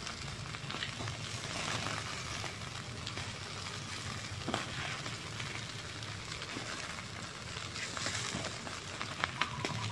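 Pieces of pig's head sizzling on a wire grill over charcoal: a steady hiss with scattered sharp crackles.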